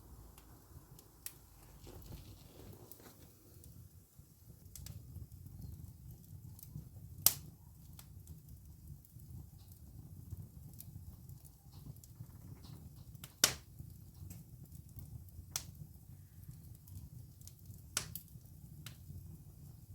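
Wood fire in a fireplace burning with a steady low rumble, broken by sharp crackles and pops every second or two. Two pops, about seven and thirteen seconds in, are much louder than the rest.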